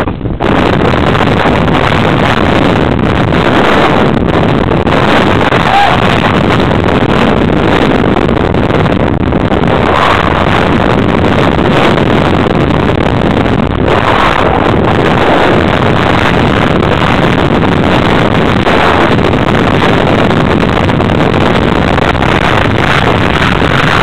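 Loud, steady rush of wind buffeting the microphone of an onboard camera moving at speed, mixed with rolling and rattling noise from the course.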